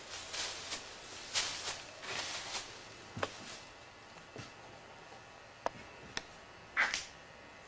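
Quiet footsteps scuffing over a stripped, gritty floor for the first few seconds, then a few separate sharp clicks and one louder scuff near the end.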